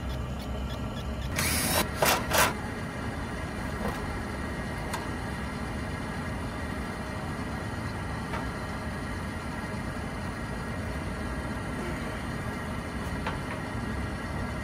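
Steady rooftop background hum with wind noise. A short burst of handling clatter comes about one and a half seconds in, followed by two sharp knocks.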